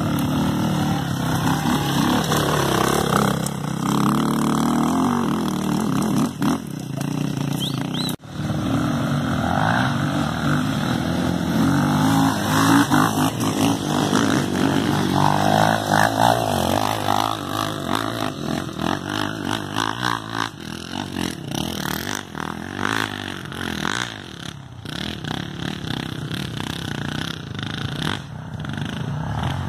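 Dirt bike engine running under load, revving up and down repeatedly, with a brief cut-out about eight seconds in.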